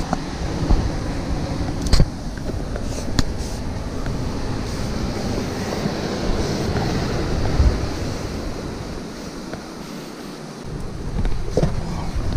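Wind buffeting the camera microphone, with rubbing and a few sharp knocks from clothing, hands and rock against the body-worn camera during a rope climb down a rock face.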